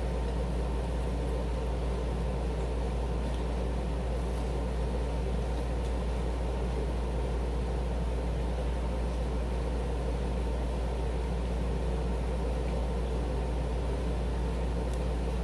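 Air conditioner running on its fan setting: a steady low hum with an even hiss.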